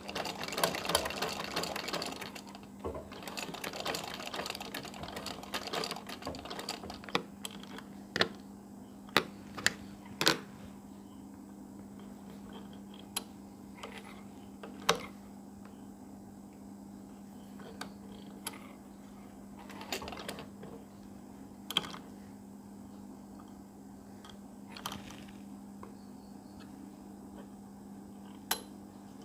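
Sewing machine stitching cotton fabric, a rapid run of needle ticking at the start and again a few seconds later and briefly about twenty seconds in. Single clicks and knocks from the machine are scattered between the runs, over a steady low hum.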